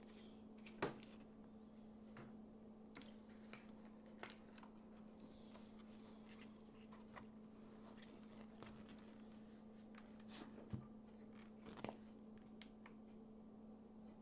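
Faint scattered clicks and taps of hands handling a laptop and its parts, over a steady low electrical hum; the sharpest click comes about a second in, with a couple more near the end.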